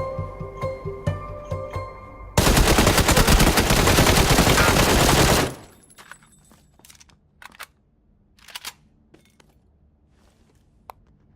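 Soft background music, then a loud, dense crackling rattle that cuts in about two seconds in, lasts about three seconds and stops abruptly, followed by a few faint clicks.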